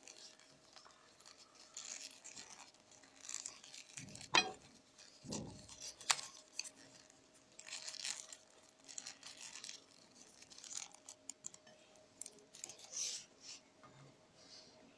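Rolled newspaper tubes rustling and scraping against each other as they are woven over and under by hand, in short irregular bursts with a few sharp clicks.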